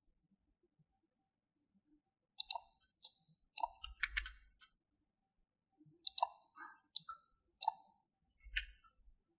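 Computer keyboard and mouse clicks: a run of about ten short, sharp clicks starting about two and a half seconds in, a few of them with a dull low knock.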